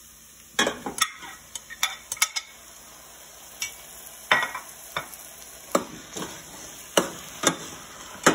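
A metal spoon clinks and scrapes against a glass dish and a stainless steel pot as raw chicken pieces are scooped into frying onions, over a steady sizzle. The clinks come irregularly, about a dozen of them.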